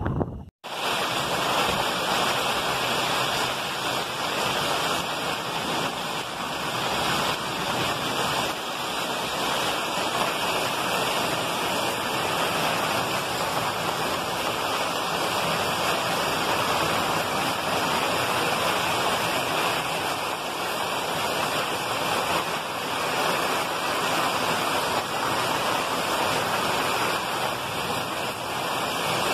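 Heavy rain pouring down steadily, a dense even hiss with no thunder claps, broken only by a brief dropout about half a second in.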